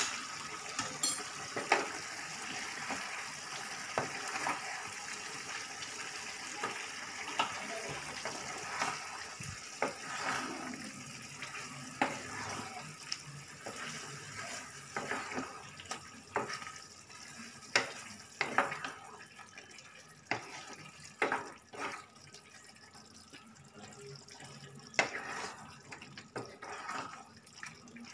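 Slotted spatula stirring a thick jackfruit curry in a pan, with irregular knocks and scrapes against the pan, over the steady sound of the curry cooking on the gas stove, which grows quieter in the second half.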